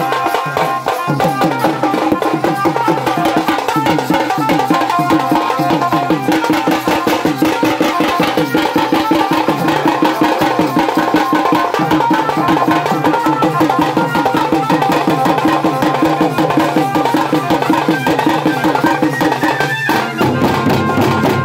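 A tasa band playing: barrel drums and stick-beaten tasa drums in a fast, dense rhythm, with hand cymbals, over a steady held melody line.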